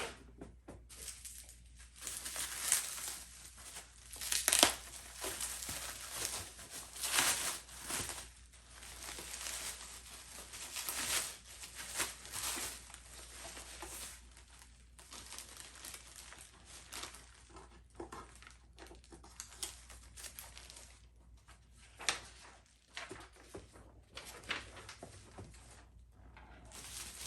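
Bubble wrap and plastic packing crinkling and rustling as it is handled and pulled away, in irregular bursts throughout.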